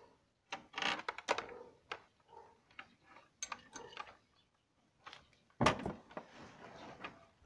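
Hands working with small metal parts and tools: a series of clicks, taps and light scrapes, with a sharper knock about five and a half seconds in followed by rustling.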